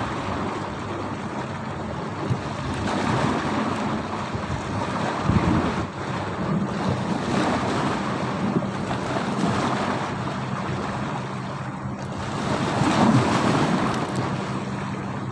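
Strong wind buffeting the microphone and choppy sea waves slapping against a small fishing boat, swelling louder about five seconds in and again near the end. A steady low hum runs under it, typical of the boat's engine.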